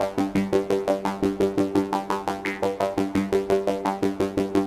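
Korg Modwave synthesizer playing one layer of a sequenced patch: a fast, even stream of short pitched notes, about eight a second. A motion sequence drives the cutoff of an MS-20-style high-pass filter.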